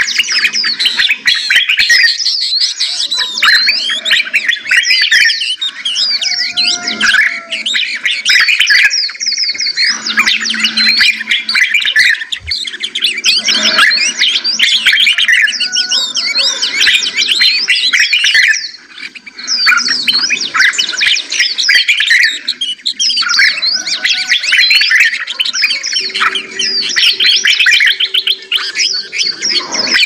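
Several songbirds singing together in a dense chorus of rapid, overlapping chirps and trills, with a brief lull about two-thirds of the way through.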